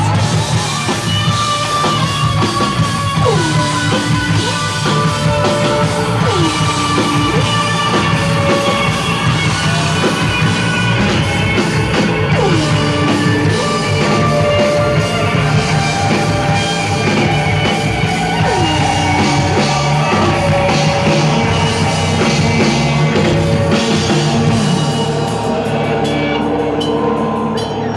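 Heavy rock band playing live, an instrumental passage driven by a drum kit, with several notes sliding down in pitch.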